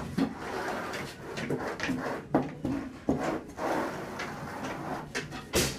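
Irregular scrapes, knocks and shuffling steps of a worker rolling epoxy top coat over a floor with a long-handled roller, ringing off the walls of a small tiled room.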